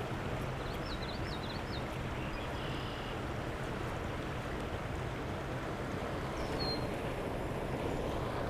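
Steady rush of shallow creek water running over riffles. A few short, faint high chirps come about a second in and once more past the middle.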